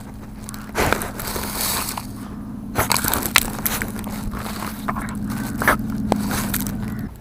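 Dachshund digging and scratching, with irregular scraping and crunching over a steady low hum that stops just before the end.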